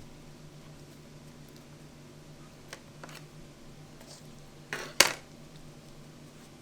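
Kitchen utensils being handled: a few light clicks, then a sharp metal clatter about five seconds in, over a low steady hum.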